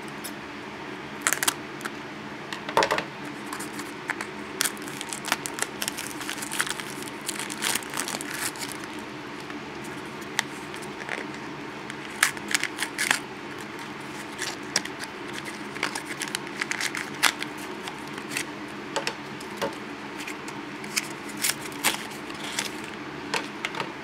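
A Shopkins blind bag's packaging crinkled and torn open by hand, with irregular crackles and small clicks.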